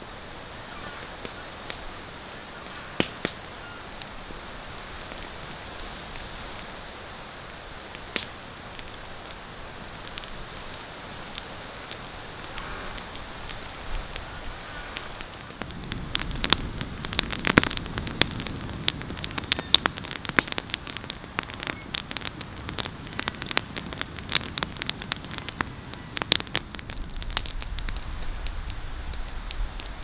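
Log campfire burning, crackling with a steady hiss and an occasional sharp pop. About halfway through it gets louder, with pops and crackles coming thick and fast.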